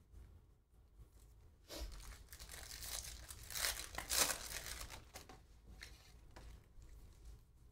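Foil wrapper of a Panini Donruss basketball card pack being torn open and crinkled. It starts about two seconds in and is loudest around four seconds. Softer rustling follows as the stack of cards is pulled out.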